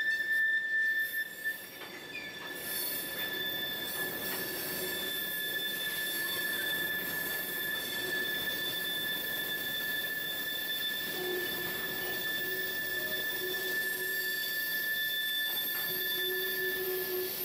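Freight train of covered hopper cars rolling past, its steel wheels giving a steady high-pitched squeal against the rails over the rolling rumble of the cars, with a second, lower squeal coming and going in the second half.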